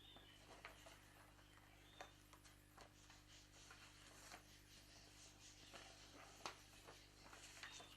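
Near silence: faint room tone with a steady low hum and scattered faint clicks.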